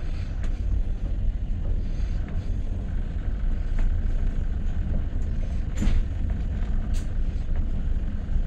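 Passenger train running, heard from inside the coach: a steady low rumble with a few sharp clicks of the wheels over the track, the loudest about six seconds in.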